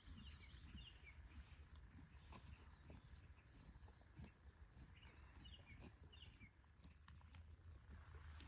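Faint bird chirps: a quick twittering phrase near the start and two more about halfway through, over a very quiet rural background with scattered faint ticks.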